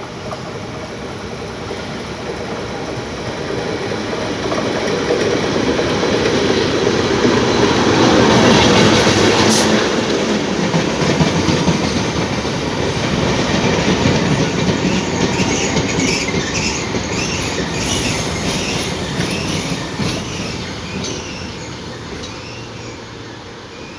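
ALCO RSD39 diesel-electric locomotive and its coaches passing, the sound building to a peak about eight seconds in and then fading as the train rolls on. Wheels clatter over the rail joints, and later there is a repeated high squeal from the wheels as the train slows into the station.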